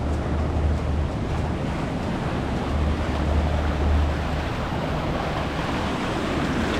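Sea waves washing on the shore, a steady rush, with wind buffeting the microphone in low rumbling gusts.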